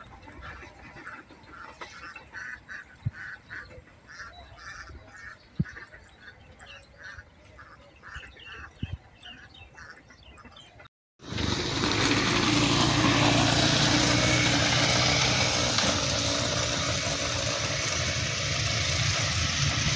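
Ducks quacking in a steady series, about two calls a second, through roughly the first half. After a brief cut, a loud steady rushing noise with a low hum beneath it takes over.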